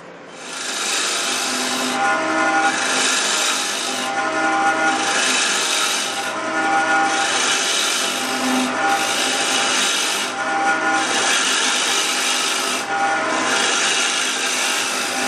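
Bowl gouge cutting a wooden bowl blank spinning on a lathe: a loud, steady scraping hiss that swells and eases in repeated passes about every second and a half as the tool sweeps across the wood.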